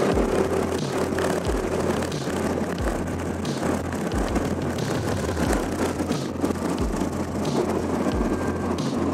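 Wind rushing and buffeting on the microphone of a Suzuki Burgman Street 125 scooter under way, with the scooter's 125 cc engine running underneath. A faint steady whine fades out about two seconds in.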